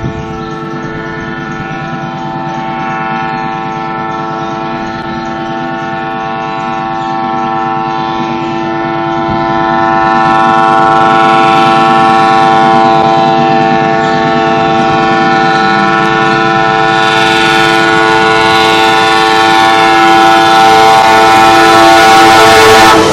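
Indian Railways locomotive horn held in one long, unbroken multi-tone blast, growing steadily louder. From about halfway the noise of the moving train builds up underneath it.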